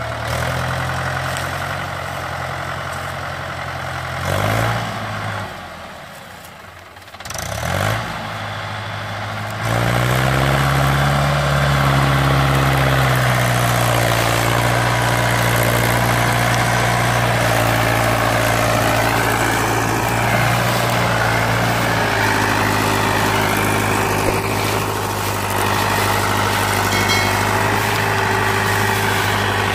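Mahindra 575 DI tractor's four-cylinder diesel engine running as it pulls a heavily loaded sugarcane trolley. The engine sound drops away for a few seconds, then about ten seconds in picks up and rises in pitch, and holds steady after that.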